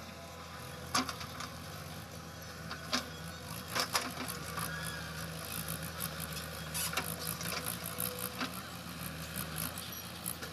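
JCB backhoe loader's diesel engine running steadily while its rear bucket digs into loose soil, with irregular sharp knocks and clatter from the bucket and arm.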